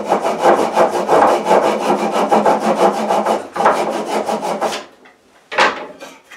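Small hand saw cutting a groove into a wooden saw handle with short, quick back-and-forth strokes, several a second. There is a brief pause about three and a half seconds in, the sawing stops just before five seconds, and one more stroke comes near the end.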